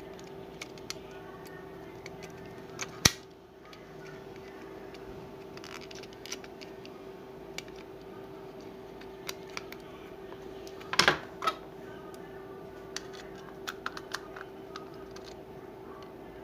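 Small plastic clicks and taps of a computer mouse's casing and parts being handled and fitted together, with a sharp click about three seconds in and a quick cluster of clicks around eleven seconds, over a steady hum.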